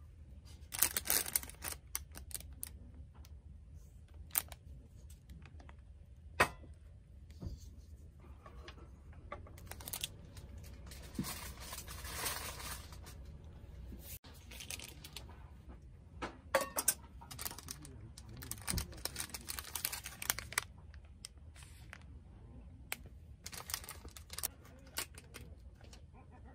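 Handling noises of small objects: scattered clicks, light knocks and rustling, busiest about ten seconds in and again from about sixteen to twenty seconds.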